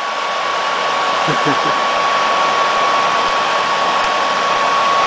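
A 1966 Lady Sunbeam bonnet hair dryer's motor and fan running with the cover off. A steady rush of air carries a steady high whine.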